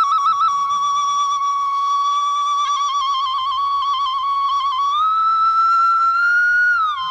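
Instrumental passage of an old Khmer song: a single flute-like lead line holds a note with quick trills, glides up to a higher held note about five seconds in, and slides back down near the end.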